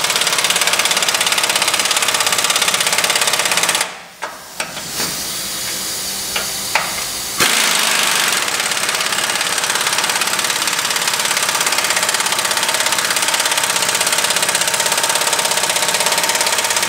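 Impact wrench hammering as it drives bolts tight on a snowplow mounting bracket: a loud, rapid, steady rattle. It stops about four seconds in, leaving a few sharp clicks while the socket is moved, then starts again about seven seconds in and runs on.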